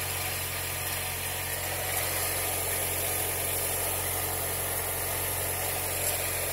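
Mercedes-Benz M111 four-cylinder engine running steadily, heard up close at its accessory belt drive. Mixed in is the strange under-hood noise being traced here, which turned out to come from a worn bearing in the belt tensioner pulley.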